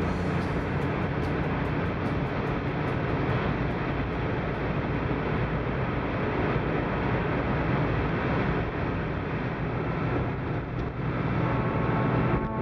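Steady road noise inside a moving car on a wet road: engine and tyre rumble, with the hiss of tyres on wet asphalt.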